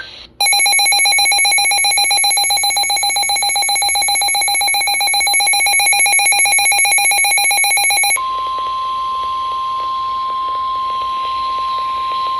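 Emergency Alert System attention signal: a loud, harsh two-tone alarm held for about eight seconds, then switching abruptly to a single steady high tone, the weather-radio warning alarm tone, for the rest. The tones announce that a severe thunderstorm warning message follows.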